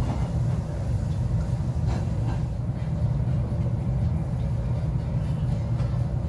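Steady low rumble of restaurant room noise, with two faint clicks of tableware about two seconds in.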